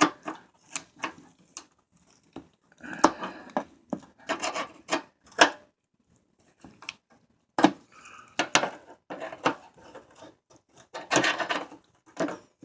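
Socket wrench ratchet clicking in several short runs of strokes, separated by pauses, while a rusty headlight-mounting bolt is being loosened.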